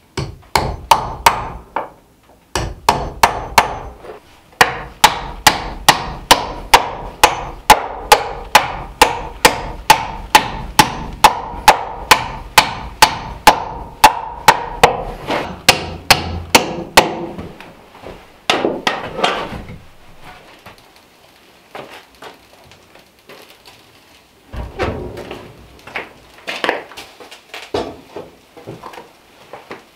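Steady hammer blows on a wooden beam, about two to three strikes a second, as a rough-sawn wooden bench is built. They stop partway through, and lighter, irregular knocks and clatter follow near the end.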